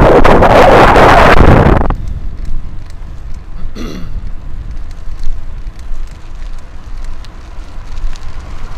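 Wind buffeting the microphone of a camera carried on a moving bicycle: a heavy rush for the first two seconds, then a steady low rumble with light crackle. A short falling tone passes about four seconds in.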